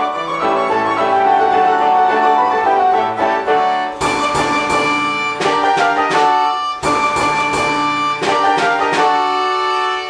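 Early-1900s Imhof & Mukle orchestrion playing a tune, its violin pipes holding long notes over the piano. From about four seconds in, sharper struck accents join in more busily.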